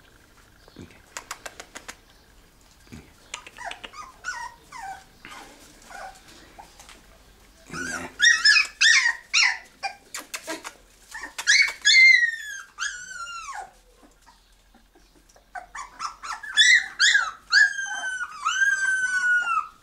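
Podenco orito español puppies, just under a month old, whining and yelping: high-pitched cries that fall in pitch, in three spells about eight seconds in, twelve seconds in and near the end, the last the longest. Light clicks and taps come before the cries.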